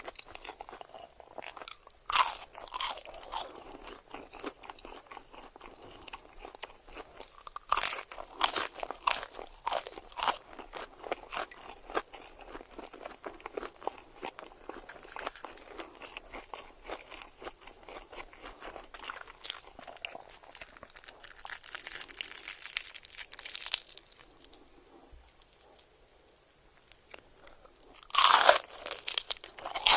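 Close-miked eating of crunchy food: loud crunching bites about two seconds in, a run of them around the eight-to-eleven-second mark and again near the end, with softer chewing in between and a brief lull shortly before the last bites.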